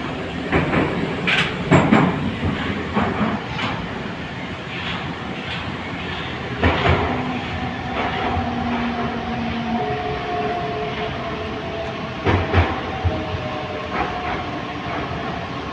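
Type 81-722.1 metro car running and slowing into a station: steady rolling rumble with scattered wheel knocks over rail joints. From about halfway, the electric traction drive gives a thin whine that slides slowly down in pitch as the train brakes.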